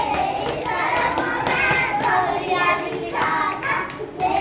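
Children singing with hand claps.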